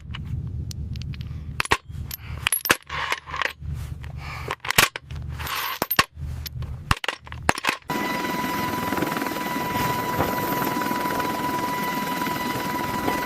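Bursts of automatic gunfire, sharp cracks over a heavy low rumble, for about eight seconds. Then an abrupt cut to the steady running noise of a helicopter, with a high steady whine.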